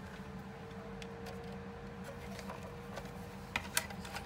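Small clicks and taps of plastic parts being handled during a dehumidifier's reassembly, with a few sharper clicks about three and a half seconds in, over a faint steady low hum.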